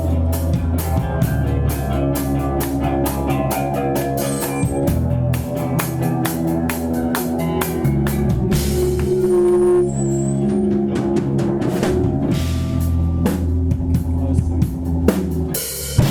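A rock band playing live, with a drum kit hitting steadily over sustained bass and electric guitar. About halfway through, a cymbal wash takes over briefly.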